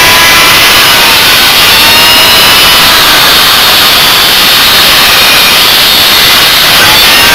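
A power tool cutting through metal scrap: a loud, steady hiss with a whine that wavers in pitch as the cut loads and eases.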